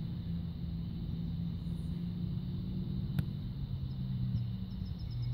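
Low, steady engine drone of a motor vehicle, its pitch dropping about four seconds in, with one sharp click near the middle.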